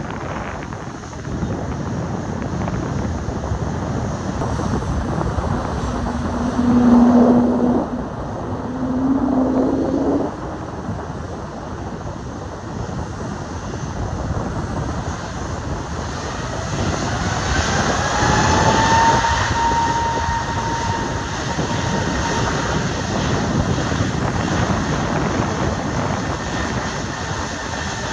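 Embraer E2 airliner's Pratt & Whitney PW1900G geared turbofan engines at takeoff, over a steady jet rush. A third of the way in come two low moaning tones that slide upward, the so-called whale sound. About halfway through, an engine whine rises in pitch and then holds high and steady as thrust builds.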